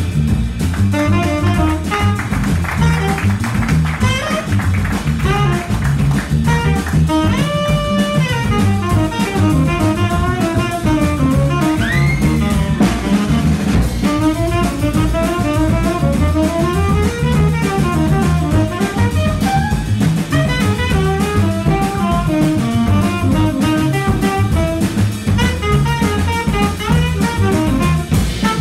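Live jazz quartet: a tenor saxophone playing an improvised solo line of quick notes, with one high note bending up and back down about twelve seconds in, over a double bass and a drum kit.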